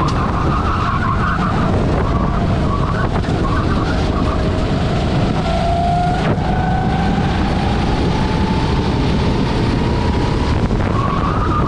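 Rental kart engine running at racing speed under heavy wind rush on the onboard microphone. Its note drops away around a tight corner about four seconds in, then rises steadily as the kart accelerates onto the straight.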